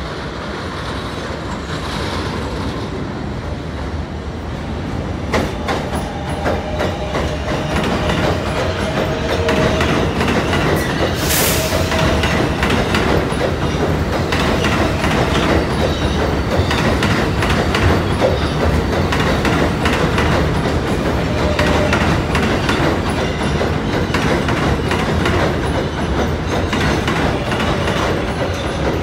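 New York City subway train running in on elevated track and passing close by, growing louder over the first several seconds and then holding steady. Wheels clatter over the rail joints, with faint wheel squeal and one brief sharp high burst about eleven seconds in.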